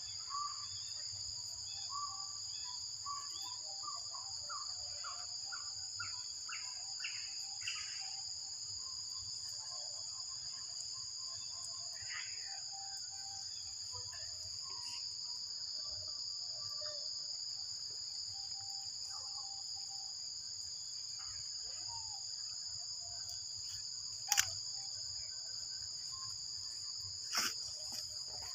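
Steady high-pitched insect drone from the forest, with a scatter of short chirps in the first few seconds and two sharp clicks near the end.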